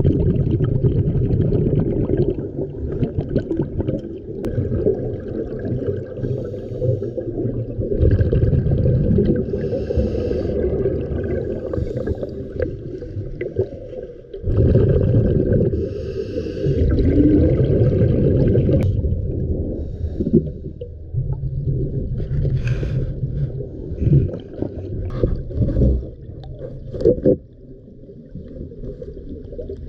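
Scuba diver breathing through a regulator underwater: long bubbling exhalations with quieter gaps between, heard through an underwater camera. A few short knocks and scrapes come near the end.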